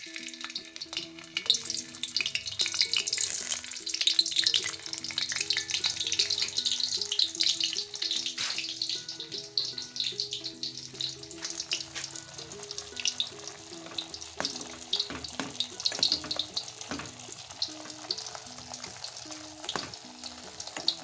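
Sausage pieces frying in hot oil in a wok, a steady sizzle that is strongest in the first several seconds, with a few clicks and scrapes of a spoon stirring in the pans.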